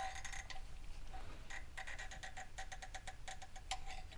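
Rapid metallic clicking of a helicoil thread insert being wound into the tapped stud hole of an exhaust manifold flange with its hand insertion tool. The clicks come in two runs, several a second, with a pause of about a second between them.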